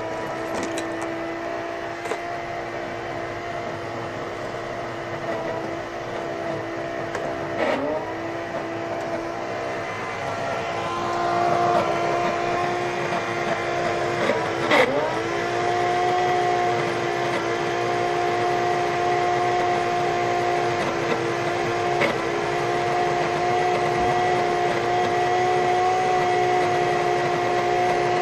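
Old shop vacuum's motor running on with a steady whine while its bearings fail and the motor overheats and smokes. The pitch sags sharply twice, about 8 and 15 seconds in, then recovers.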